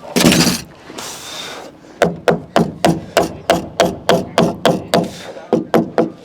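A sharp noisy burst at the start, then a framing hammer striking timber in a fast, even run of about four blows a second, each blow ringing briefly.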